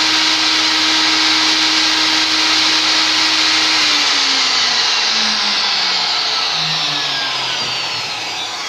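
Table-mounted circular saw running steadily with no cut, then switched off about four seconds in, its motor and blade winding down in a falling whine.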